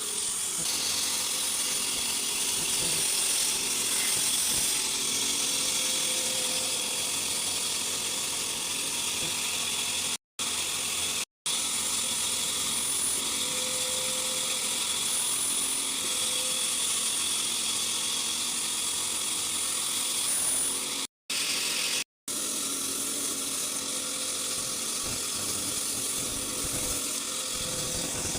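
Wood-cutting saw machine running steadily, a high whine over a continuous hiss. The sound drops out to silence briefly four times.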